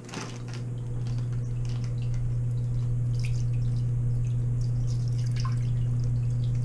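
Water from a fish-store bag being poured through a small hand net into a sink, splashing and dripping, over a steady low hum that comes in at the start.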